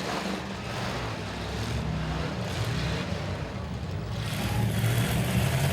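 Engines of big domestic cars running and revving together in a demolition derby, getting louder about four seconds in.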